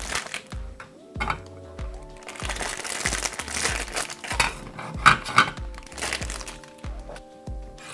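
Clear plastic wrapper of ration crackers crinkling and rustling in the hands as the crackers are pulled out, over steady background music.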